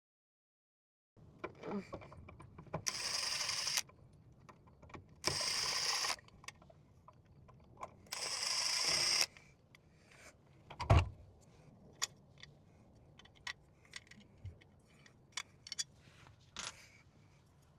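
Three short runs of a small power tool, each about a second long, as the ceiling fixture is unscrewed. Then come scattered small clicks and knocks of parts being handled, with one heavy thump about eleven seconds in.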